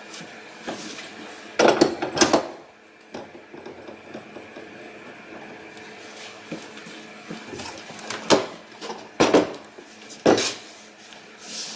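Steel-tube table-leg extensions being handled, clanking and knocking as metal pieces touch. There is a cluster of clanks about two seconds in, then single knocks about a second apart in the last few seconds.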